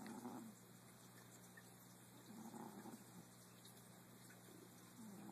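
A sleeping pet snoring faintly in slow, even breaths, about one snore every two and a half to three seconds, each lasting roughly a second.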